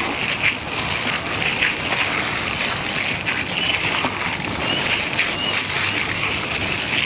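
Wet squelching and squishing of a plastic-gloved hand kneading a soft mash of potato, minced pork and raw egg in a bowl.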